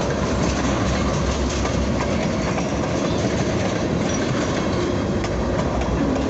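Diesel locomotives and rail cars moving slowly on a switching move: a steady low engine rumble with the wheels clicking over the rail joints.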